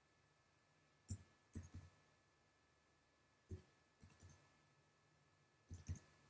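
Near silence broken by faint, scattered computer keyboard keystrokes in small clusters, as a confirmation code is typed in.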